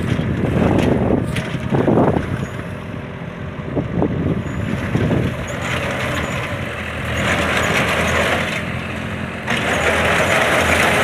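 Tractor engine running steadily under load, driving a front-mounted reaper binder as it cuts standing crop. The sound grows louder about nine seconds in.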